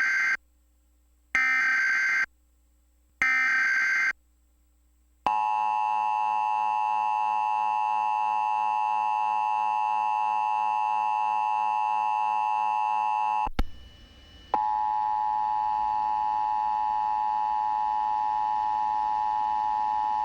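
Emergency Alert System tones for a national EAN test: three short, screechy bursts of SAME digital header data, then the steady two-tone EAS attention signal (853 and 960 Hz), which breaks off briefly about two-thirds through and resumes with hiss underneath.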